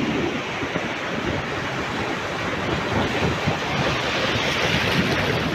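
Sea surf breaking offshore and washing in foam around rocks at the water's edge: a steady rush of water noise that swells slightly near the end.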